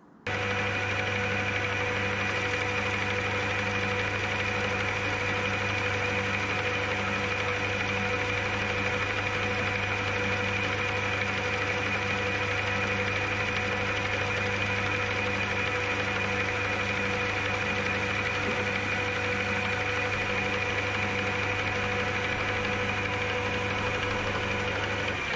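Metal lathe running at a steady speed while a boring bar takes a light cut inside a tube held in the three-jaw chuck: a steady motor and gearing whine made of several held tones. It starts abruptly at the beginning and drops away near the end.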